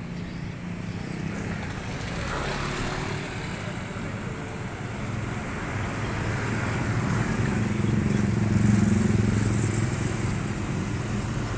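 Motorcycle traffic on a street: small engines running steadily, growing louder about eight to nine seconds in as one passes close.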